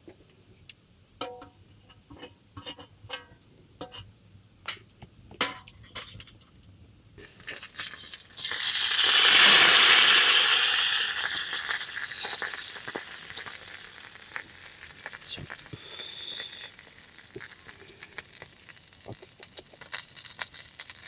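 Light clinks and taps of cookware, then a loud frying sizzle from a hot pan that swells about eight seconds in and slowly dies away over several seconds.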